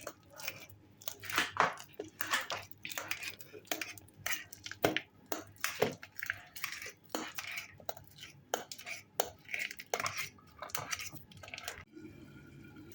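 Metal fork mashing ripe cooking bananas in a dish: irregular clinks and scrapes of the fork against the dish, several a second.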